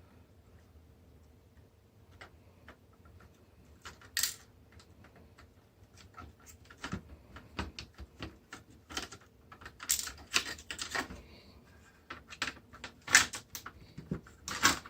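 Irregular clicks and knocks of plastic parts and circuit boards being handled and pulled apart while an SVP film scanner is taken to pieces, sparse at first and coming thicker from about halfway through.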